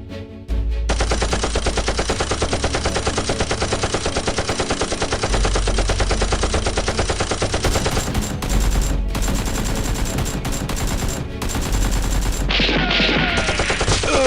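Rapid automatic gunfire, a long unbroken burst that starts about half a second in, then goes on with short breaks after about eight seconds. Near the end the firing gives way to a sweeping noise with gliding tones.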